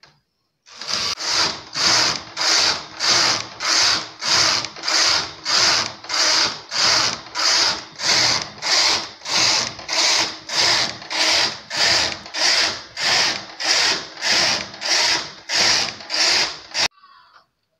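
Domestic knitting machine's carriage pushed back and forth across the needle bed, knitting row after row: a rasping swish on each pass in a steady rhythm of just under two passes a second, stopping near the end.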